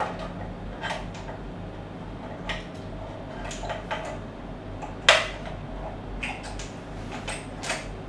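Safety padlock, tag and plastic plug lockout cover being handled and fitted together: scattered small clicks and light knocks, with one sharp click about five seconds in.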